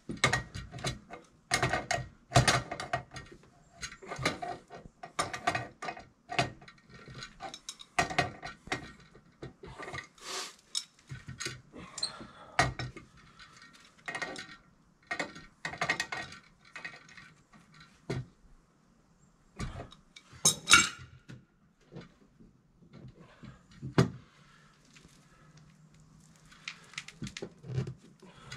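Irregular metal clicks, clanks and scrapes from hand tools working the metal conduit offset fitting between an electrical panel and a small box, with one louder clank about 21 seconds in.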